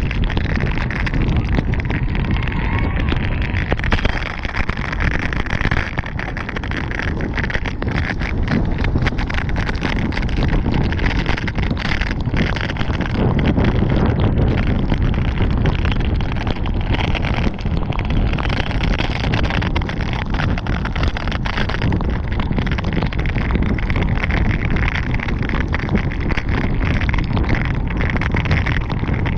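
Wind rushing over a GoPro's microphone on a bicycle racing along a rain-soaked road, mixed with the hiss of rain and tyre spray and scattered clicks.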